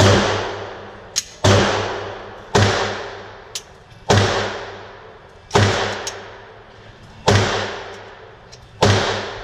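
Seven slow, single pistol shots from a 9 mm Glock 17 Gen 4, about one and a half seconds apart. Each report echoes and dies away under the range's roof.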